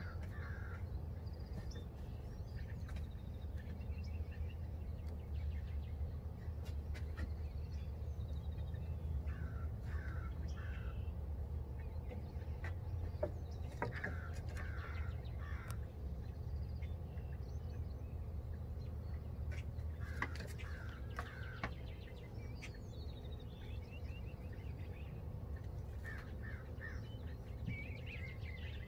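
Harsh bird calls, like crows cawing, come in short series of three or four several times over a steady low hum, with a few light knocks.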